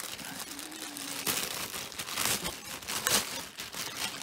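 Clear plastic bag crinkling and rustling as it is handled and pulled open, with louder crackles about a second in, at about two seconds and at about three seconds.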